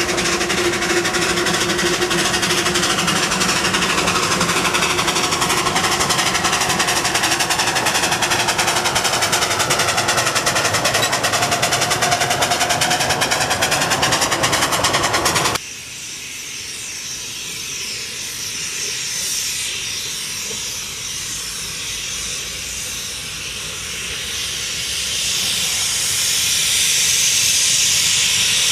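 Narrow-gauge steam locomotives working a train: a loud, rapid, steady beat of exhaust and running gear, cut off suddenly about halfway through. Then a quieter hiss of steam that grows louder over the last few seconds as a locomotive approaches.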